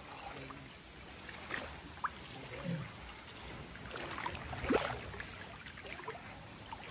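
Faint, steady flow of a shallow rocky stream, with a few soft rustles and knocks from footsteps on leaf litter along the bank, the clearest about two-thirds of the way through.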